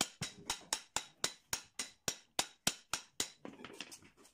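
Rapid, even hammer blows on an electric motor's housing and end cover, about four a second, knocking the end shield loose to get at the worn bearing. The blows stop a little over three seconds in, followed by a few lighter taps.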